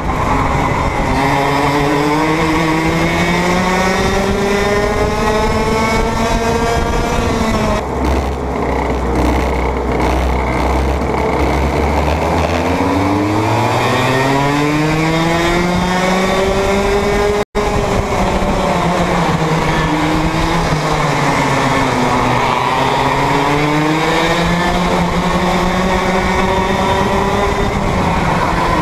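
Two-stroke racing kart engine heard onboard at full race pace, its pitch climbing on the throttle and dropping off under braking, over and over. Around a third of the way in the revs fall to a low, deep note and then climb steadily again, and the sound cuts out for a split second a little past halfway.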